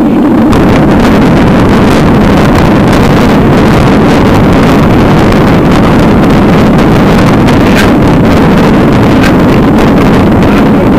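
Loud, distorted rumble of wind and road vibration on a bicycle-mounted camera's microphone, with rapid rattling knocks from riding over cobbles.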